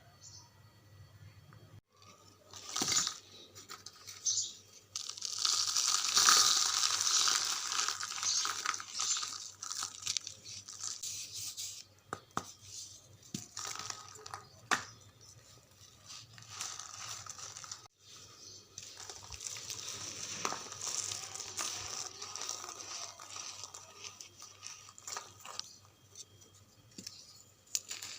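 Dry charcoal being crumbled: crunchy crackling and crumbling with scattered sharp cracks, loudest about six seconds in.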